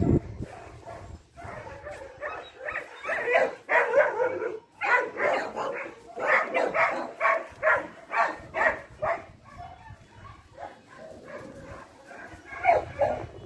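A dog barking in quick, repeated barks, easing off about ten seconds in before a few more barks near the end.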